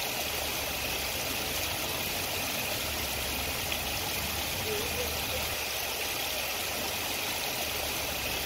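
Steady outdoor background noise: an even hiss with a low rumble underneath and no distinct events.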